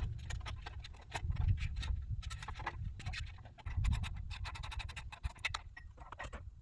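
Irregular scratching and clicking over a low, uneven rumble.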